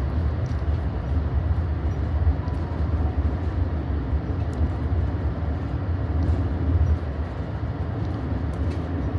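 Steady low rumble of a passenger train car rolling along the track, heard from inside the car, with a few faint light ticks now and then.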